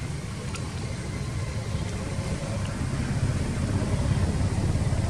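A motor vehicle's engine running as a low, steady rumble that slowly grows louder.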